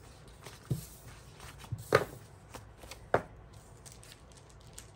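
Paper sticker sheets being gathered up and handled on a tabletop: light paper handling with a few soft knocks about a second apart.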